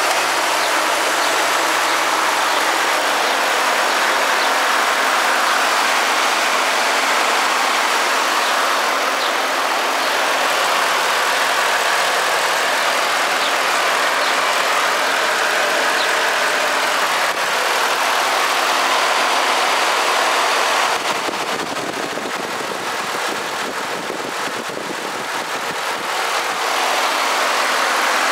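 A 2014 Ford F-150's 5.0-litre Coyote V8 idling steadily under the open hood. About twenty seconds in it turns a little quieter for several seconds, then steadies again.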